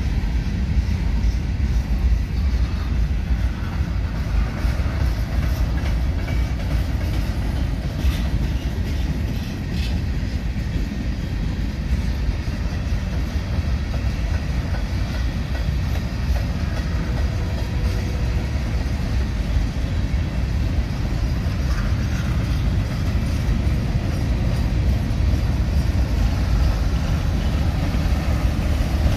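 Freight cars of a manifest train rolling past: a steady low rumble of steel wheels on rail, with a few light clicks along the way.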